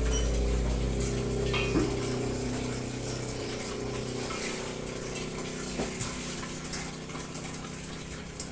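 Water running from a tap into a basin, a steady hiss, with a low steady hum underneath that dies away partway through.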